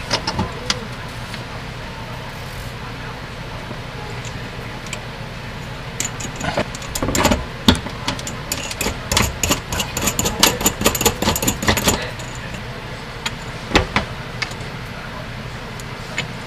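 Small metal hardware clinking and rattling as a lock washer and lock nut are handled and threaded onto a faucet's threaded stem, in a busy run of clicks from about six to twelve seconds in, with a single knock a little later. A steady low hum sits underneath.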